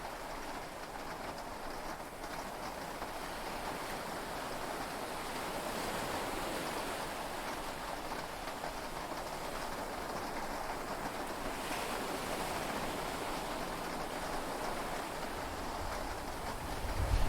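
Steady wash of heavy rain and sea waves heard from inside a yacht cabin during a storm at sea. A low thunder rumble begins to build near the end.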